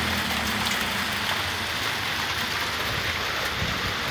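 Freezing rain of small ice pellets coming down steadily, a dense hiss of pellets pattering on the ground, cars and porch. A low rumble sits underneath in about the first second.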